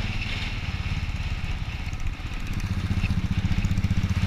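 Royal Enfield 350's single-cylinder engine running while riding, with a steady, even exhaust beat. It dips briefly about halfway, then picks up and runs a little louder.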